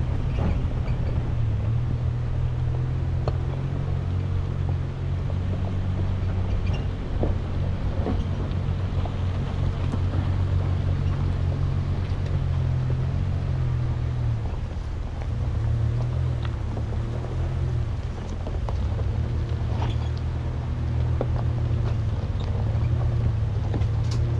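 Chevrolet Colorado ZR2 pickup's engine running steadily at low trail speed, with scattered clicks and crunches from the tyres rolling over gravel and rocks. The engine note dips briefly twice past the middle.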